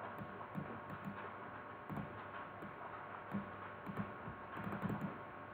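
Faint, scattered clicks of a computer mouse and keyboard over low room noise.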